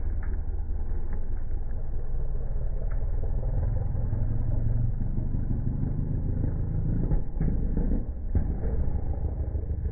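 Vehicle engine running with a steady, muffled low rumble, with a few faint knocks toward the end.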